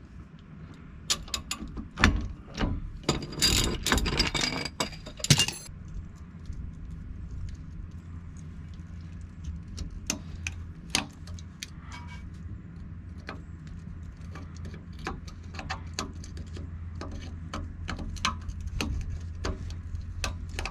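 Metal clicking and clanking of a ratchet turning a C-press screw to push a U-joint bearing cap further into the axle yoke. A dense run of clicks comes in the first few seconds, then scattered single clicks, over a steady low hum.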